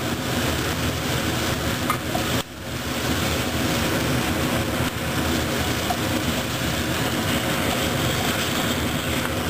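Stew meat with onions and bell peppers sizzling in a skillet while a spatula stirs and scrapes the pan, over a steady hum.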